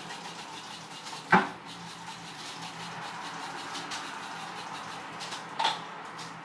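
Handling noise from working over a bare headliner board with a plastic spray bottle: two sharp knocks about four seconds apart, the first louder, over a steady faint hiss.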